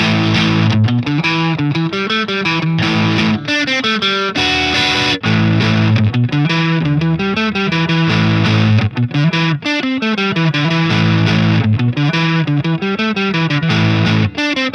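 Harley Benton TE-52 Telecaster-style electric guitar played without pause: a busy riff of picked notes, its low notes stepping up and down.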